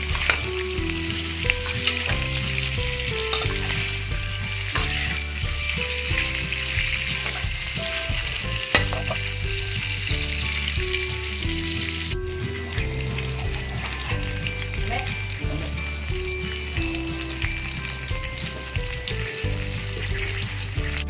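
Pork belly cubes frying and sizzling in a pan as they brown. A spatula stirs them and scrapes or knocks against the pan now and then, the sharpest knock about nine seconds in.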